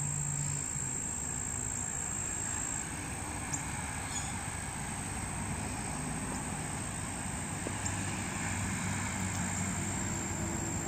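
Steady outdoor ambience: a low, even rumble of distant engine noise with a thin, steady high insect trill over it that drops out about three seconds in and returns near the end. A few faint ticks can be heard.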